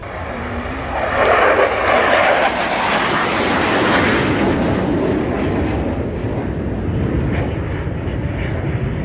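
Jet aircraft flying past at an airshow. Its engine noise swells to a loud peak a second or two in, with a faint falling whine, then carries on as a steady rumble.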